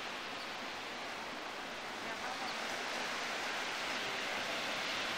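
Steady wash of ocean surf on the beach, getting a little louder about two seconds in.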